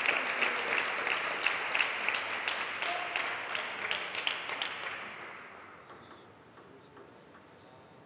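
Audience applause after a point, the clapping thinning out and dying away about five to six seconds in. A few faint scattered clicks follow near the end.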